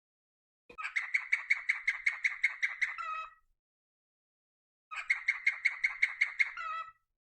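A bird singing two bursts of rapid, evenly repeated chirps, about six notes a second. Each burst lasts roughly two seconds and ends in a couple of lower notes.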